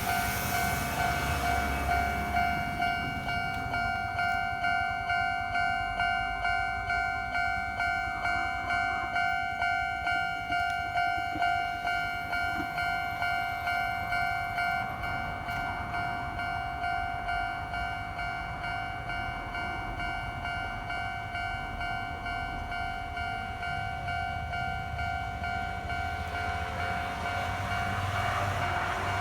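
Japanese railway level-crossing warning bell ringing, an electronic ding repeating evenly about one and a half times a second on one steady pitch.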